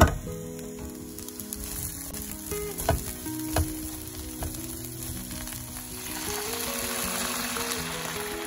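Food sizzling as it fries in a pan, with a few knocks of a utensil against the pan near the start; the sizzle grows louder from about six seconds in. Soft background music plays underneath.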